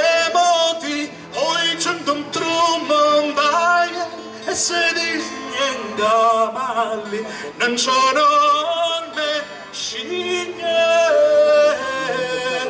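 A man singing an Arbëreshë (Italo-Albanian) folk song with an ornamented, wavering melodic line, accompanied by acoustic guitar.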